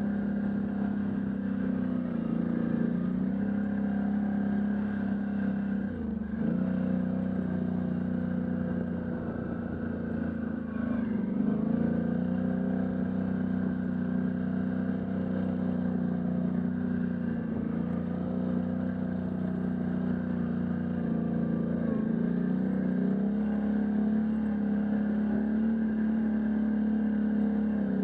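Can-Am Outlander ATV engine running steadily while riding, its note dipping briefly and coming back up several times as the throttle eases and reopens.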